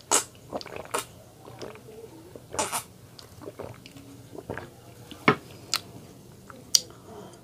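Close-up mouth sounds of drinking orange juice from a glass: gulps and swallows near the start, then sharp clicks and knocks scattered through the rest.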